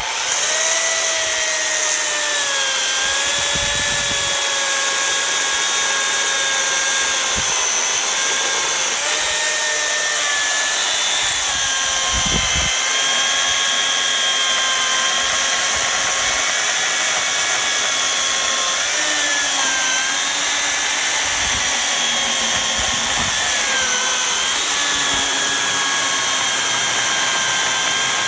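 Makita UC4051A electric chainsaw (14.5-amp motor, 16-inch bar) starting up and cutting crosswise through a frozen birch log. The motor whine is loud and steady, with its pitch sagging and recovering several times as the chain bites under load.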